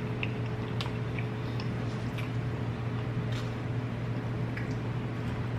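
Soft eating sounds, a few scattered small clicks and crunches of someone chewing, over a steady low electrical hum.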